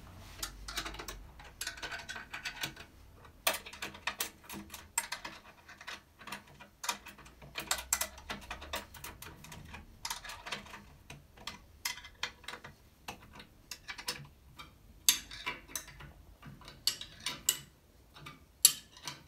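Irregular metallic clicks and taps of a 17 mm spanner being fitted onto and turned on the bolts of an exercise bike's front stabiliser, as the bolts are tightened. A few sharper clicks come near the end.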